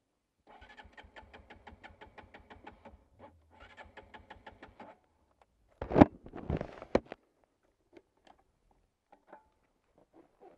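Electric starter of a Sinnis Terrain 125 single-cylinder engine cranking in two bursts of rapid, even pulses without the engine catching: the side-stand safety cut-out is engaged. A few loud sharp clicks follow about six seconds in as the key is handled and the metal fuel filler cap is opened.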